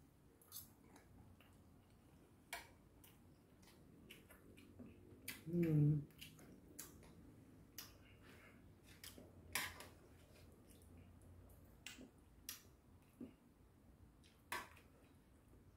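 Stainless steel chopsticks and spoon clicking and tapping against a stainless steel compartment meal tray, a sharp click every second or two. About six seconds in comes a short vocal sound, the loudest moment.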